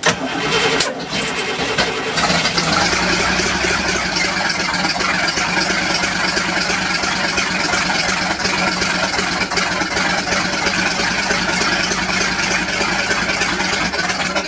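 Marine GM small-block 350 V8 (Crusader CH270 setup) cranking and catching on its first start after the rebuild, uneven for the first two seconds, then running steadily. Its ignition timing is not yet adjusted.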